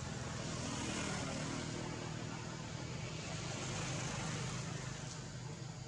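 Low, steady engine drone from a motor vehicle or aircraft, with an even hiss over it. It swells and eases twice.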